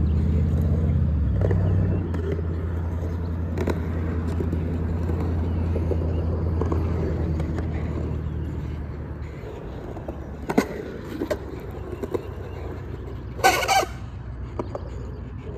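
Skateboard wheels rolling on a concrete bowl, a steady low rumble that fades after about eight seconds. A few sharp clacks follow, and a short harsh scrape comes near the end.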